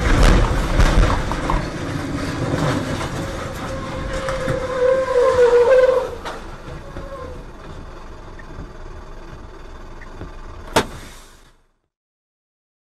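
A truck crash heard from its own cab: a sudden loud impact, then several seconds of heavy rumbling and scraping as the truck runs off the wet highway into roadside brush beside a semi-trailer. Quieter running noise follows, with one sharp click just before the sound cuts off.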